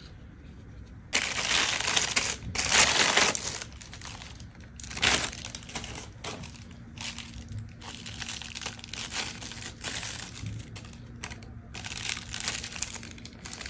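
Paper and plastic packaging crinkling and rustling as it is handled, loudest in a stretch a second or so in and a sharp rustle about five seconds in, then softer, intermittent rustling and handling noise.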